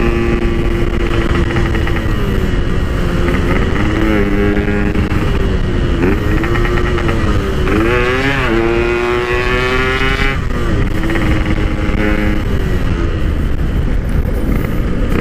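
Two-stroke Yamaha RX-King single-cylinder engine with a PK1 aftermarket exhaust, heard while riding. The engine note rises and falls with the throttle, climbs sharply in pitch about halfway through under hard acceleration, holds high for a couple of seconds, then drops back, over low wind rumble.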